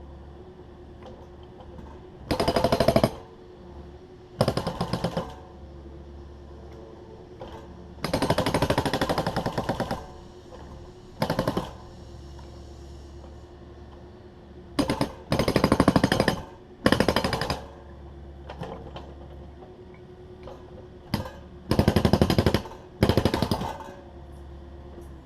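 Takeuchi TB260 excavator's diesel engine running steadily. About nine short bursts of rapid hammering break in, like a hydraulic breaker working on concrete. The longest bursts come around a quarter and two-thirds of the way through.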